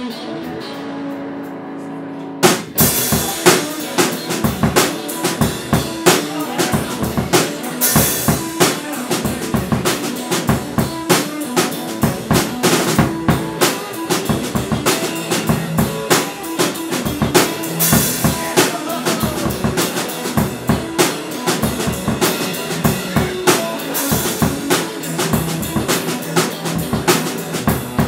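Electric guitar and drum kit playing an instrumental rock jam. The guitar plays alone for the first couple of seconds, then the drums come in with kick, snare and occasional cymbal crashes.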